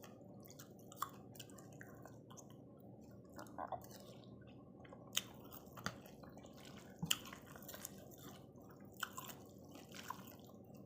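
Faint close-up eating sounds: a person chewing and slurping spicy pork noodle soup, with scattered short sharp clicks.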